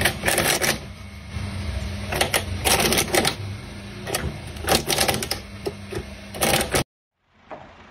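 Small electric coconut-peeling machine running with a steady motor hum. Its spinning cutter chips at a coconut held against it in about five short bursts of rapid ticking. It stops suddenly near the end.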